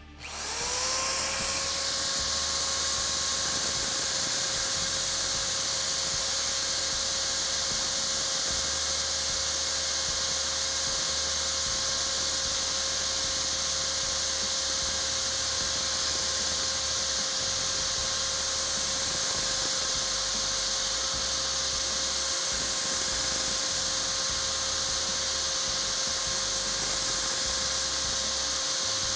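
Electric drill spinning the abrasive wheel of a piston ring filer. It spins up in the first second, then runs at a steady speed with an even whine while the piston ring is fed against the wheel to grind its end gap.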